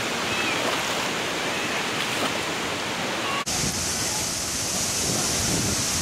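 Shallow stream water running and splashing over rocks. About three and a half seconds in, it cuts to the steady rush of a waterfall, with a brighter hiss.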